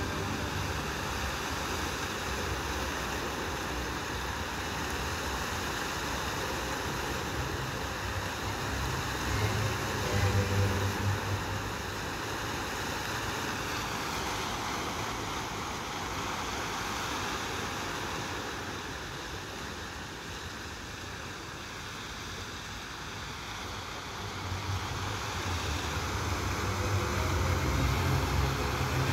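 Many fountain water jets spraying and splashing back into a large pool, a steady rush of water. A low rumble comes and goes, about ten seconds in and again near the end.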